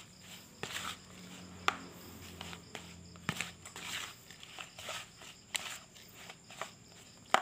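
Plastic spoon stirring and scraping a dry, crumbly carp bait mix in a plastic bowl: irregular rustling of the grains, with sharp clicks where the spoon knocks against the bowl.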